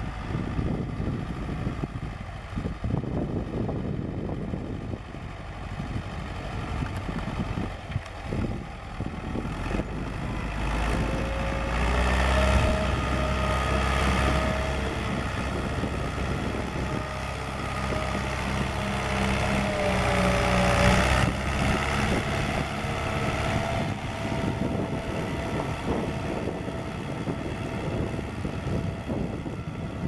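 David Brown 990 Selectamatic tractor's four-cylinder diesel engine working under load while ploughing. It grows louder as the tractor comes close, is loudest about halfway through with its note dipping and rising, then fades as the tractor pulls away.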